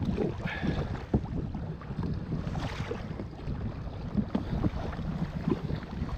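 Kayak paddle strokes splashing and dripping in the water, with small irregular knocks, over a low wind rumble on the camera microphone.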